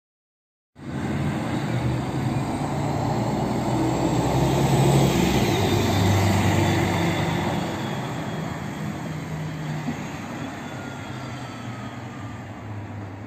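Mercedes-Benz O 530 G Citaro articulated bus driving past: the engine and road noise start suddenly, grow louder as it approaches, peak around the middle and fade as it pulls away.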